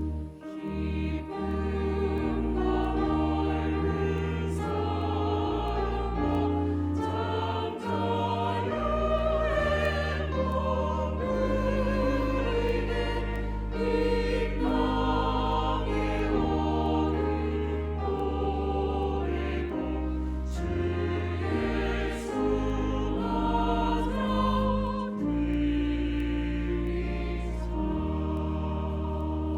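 Church choir singing a hymn with instrumental accompaniment, over deep sustained bass notes.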